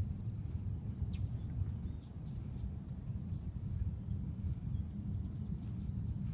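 Low wind rumble on the phone's microphone in open marshland, with two faint, short bird chirps, one about two seconds in and one near the end.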